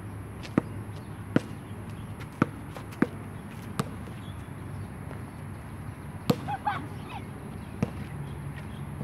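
Basketball bouncing on a hard outdoor court: sharp single bounces at uneven intervals, several in the first four seconds, then two more later. Just after the loudest bounce comes a brief chirping sound.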